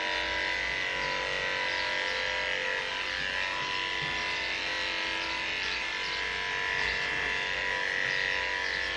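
Corded electric dog-grooming clippers running steadily while shaving a Maltese's leg, a constant buzz with an even whine that holds without a break.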